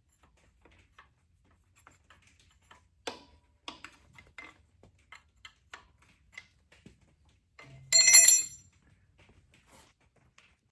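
Light clicks and taps of hand tools on metal fittings, with one loud, bright metallic ring about eight seconds in that fades within a second.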